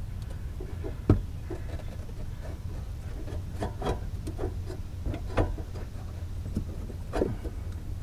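Scattered light knocks, taps and scraping as bare hands handle and rub against metal parts around a transmission under an SUV. The sharpest knock comes about a second in, with a cluster of smaller ones in the middle and another knock near the end, over a steady low rumble.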